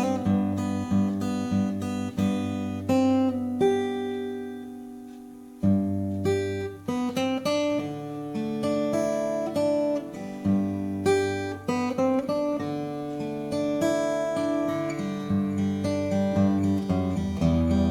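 Taylor PS14ce steel-string acoustic guitar played in strummed and picked chords, a few strokes a second. About four seconds in, one chord is left ringing and fades out, then the playing picks up again.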